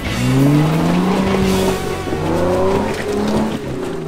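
Jeep Wrangler engine revving up and down several times under load as it crawls over rock ledges.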